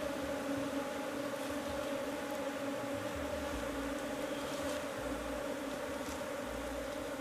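A colony of Asian honeybees (Apis cerana) humming steadily as the bees crowd around their opened log hive and the basket set over it.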